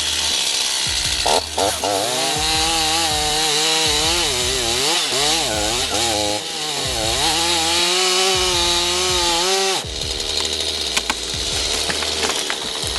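Chainsaw running at high revs, its engine note rising and falling as it cuts. About ten seconds in the steady note breaks off into a rougher, clattering sound.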